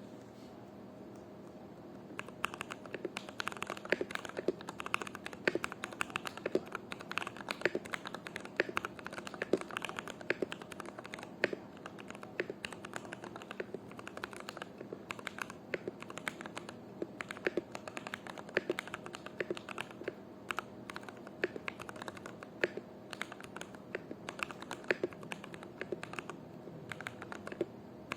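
Typing on an NJ68 mechanical keyboard with SP-Star Meteor Orange switches lubed with 205g0: a fast, uneven run of key clacks that starts about two seconds in.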